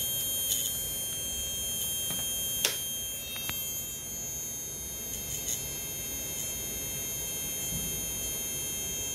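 Steady high-pitched electrical buzz from a circuit of three 12 V automotive relays that switch one another, with a few short clicks scattered through it.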